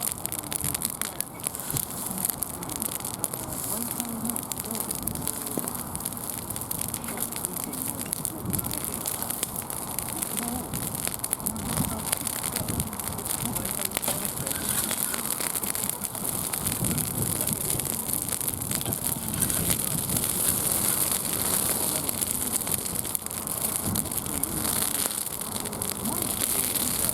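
Bonfire crackling, a dense run of small pops and snaps over a steady hiss.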